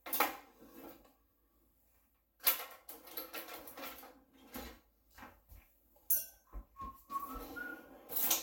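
Metal cutlery and kitchen utensils clinking and clattering as they are put away in kitchen drawers, in uneven clusters of clinks and knocks, with the drawers sliding open and shut. A few short high tones near the end.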